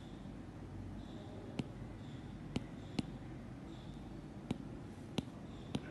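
About six light, sharp taps on a tablet screen, spaced irregularly, over a low steady hum.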